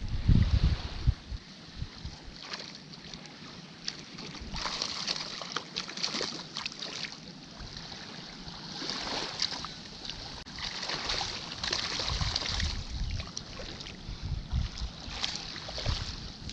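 Small waves washing in and out along a sandy shoreline, swelling and easing every few seconds, with wind buffeting the microphone in low thumps, loudest in the first second.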